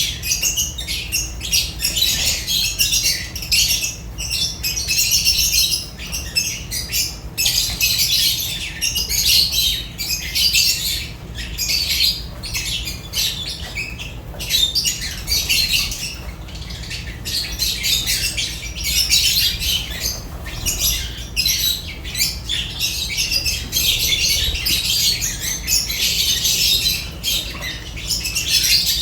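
A flock of lovebirds chattering without pause, a dense mix of shrill chirps and squawks that overlap all through, over a steady low hum.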